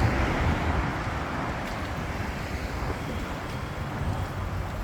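City street traffic noise: a steady rumble of passing cars.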